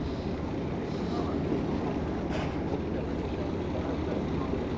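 Steady rumble and hiss of wind on the microphone with the wash of the sea around a boat.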